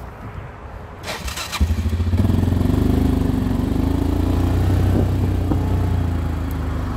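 ATV engine cranked by its starter for about half a second, catching about a second and a half in, then idling steadily.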